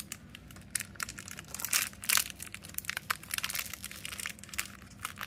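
Cardboard packaging crinkling and crackling in irregular bursts as a small door on a blind box is pried and torn open, loudest about two seconds in.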